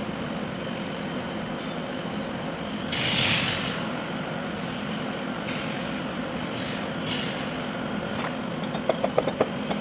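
Steady mechanical hum in the background, with a brief rustle about three seconds in. Near the end, a quick run of light metal taps, about six a second, on the Kubota B1502 front axle's cast-iron bevel-gear case as a part is tapped into its bearing bore.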